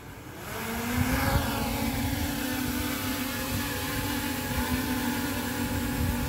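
Small quadcopter's motors and propellers spinning up over the first second as it lifts off, then a steady propeller buzz with a low hum while it hovers in place.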